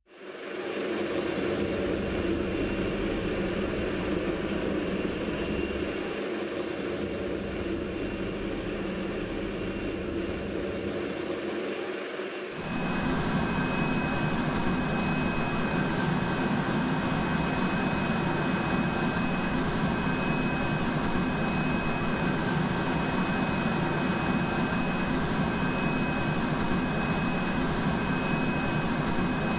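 Steady jet whine and rumble of aircraft ground noise on an airport apron. About twelve seconds in, the sound changes abruptly to a louder, lower hum with a thin high whistling tone that holds steady.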